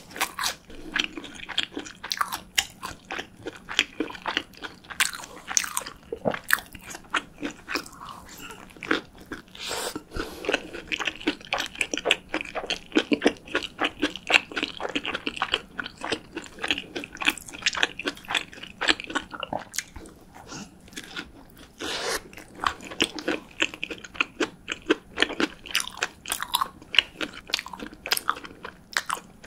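Close-miked eating sounds: chewing and biting into a hamburger and fried cheese sticks, a steady run of wet smacks and crunchy crackles, many per second.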